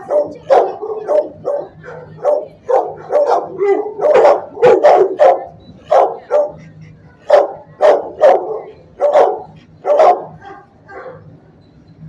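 Shelter dogs barking in repeated loud barks, roughly two a second, with a few softer barks near the end.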